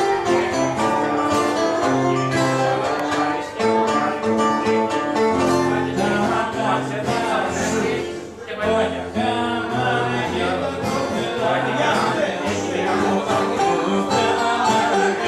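Live Greek music from a bouzouki and an acoustic guitar played through a small PA, with some singing, and a brief dip about eight seconds in.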